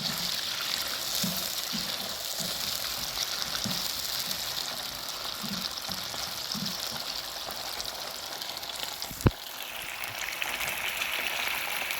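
Cow liver deep-frying in hot oil, a steady sizzle, with one sharp click about nine seconds in.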